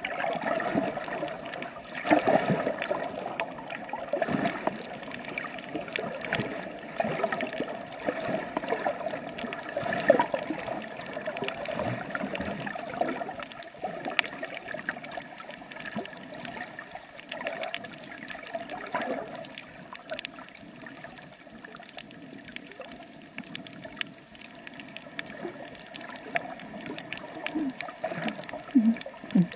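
Water sloshing and gurgling around a swimmer's camera held in the water, coming in uneven swells with small crackles.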